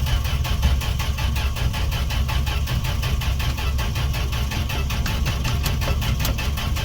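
Starter cranking the 1968 Fargo D100's engine over in an even, rhythmic churn, with the choke on and gas poured down the carburetor throat. The engine turns over but does not fire or catch, which the owner suspects is a lack of spark.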